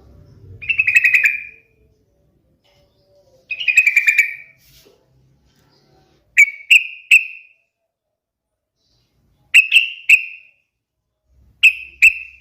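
Yellow-vented bulbul (trucukan) singing. Two bubbling, warbled phrases of about a second each come first, then three quick groups of two or three short, clear whistled notes, with short silences between.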